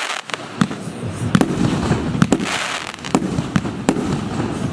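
TXB913 Big Bang firework cake firing: a rapid, uneven string of about a dozen sharp bangs as its shots burst overhead, with a hissing crackle between them, strongest about midway.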